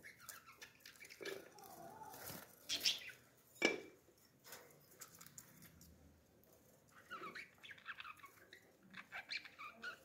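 Budgerigars chirping and chattering, with two louder, sharper calls about three and four seconds in.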